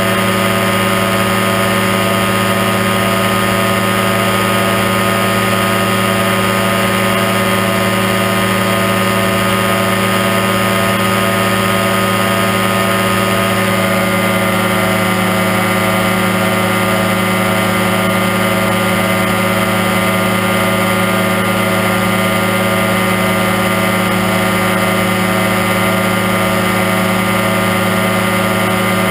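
Aerochute powered parachute's engine and propeller running steadily in level flight. The engine note shifts slightly in pitch about halfway through.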